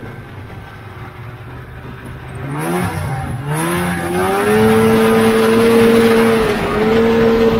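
Vintage Polaris snowmobile's two-stroke engine running at low revs, then revving up in two rising surges about three seconds in and holding steady high revs, with a brief dip about a second before the end.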